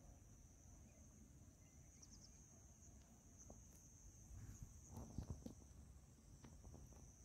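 Faint, steady high-pitched chirring of crickets, with a low rumble underneath and a few faint knocks about five seconds in.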